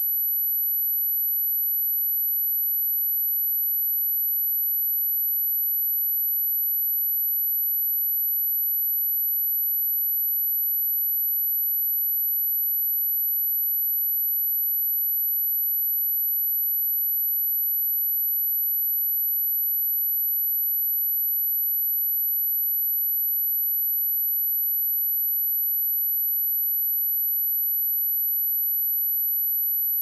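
Steady pure sine-wave test tone at 11,863 Hz, a single high-pitched whistle that holds unchanged in pitch and loudness, played as a speaker test and speaker-cleaning tone.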